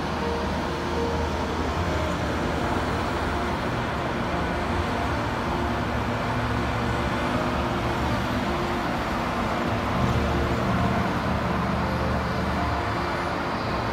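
Steady road traffic noise: a continuous wash of cars and buses passing on the streets below.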